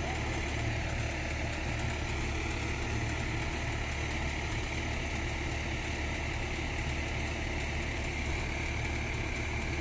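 Crawler excavator's diesel engine idling steadily, a low, even drone.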